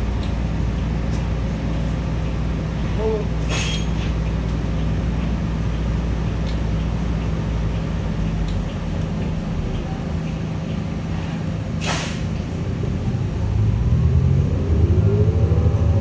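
Cummins L9N natural-gas engine of a New Flyer Xcelsior XN40 bus idling, heard from inside the cabin, with two short hisses of air from the air brakes, one about 3.5 seconds in and one about 12 seconds in. Near the end the engine gets louder and its note rises as the bus pulls away.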